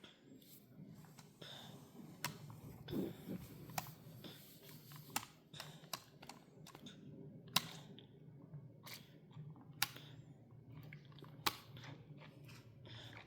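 Irregular soft clicks and smacks from a toddler's mouth sucking and swallowing at a milk bottle, over a faint low steady hum.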